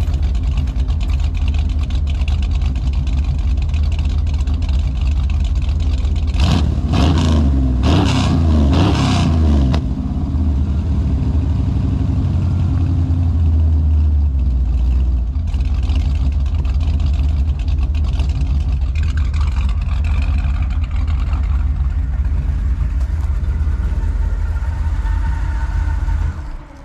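Chevrolet C10 pickup's engine, just converted from carburettor to fuel injection (EFI), heard at the exhaust idling steadily, with a run of quick throttle blips revving it up and back down about six to ten seconds in.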